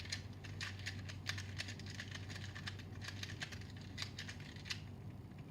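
Shizheng 2x2 speedcube being turned by hand: a run of quick, irregular plastic clicks from the layers turning.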